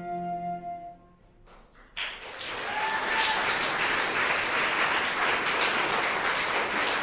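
The held final chord of a chamber ensemble of violins, cello, flute and piano dies away about a second in. After a short hush, the audience breaks into applause about two seconds in and keeps clapping steadily.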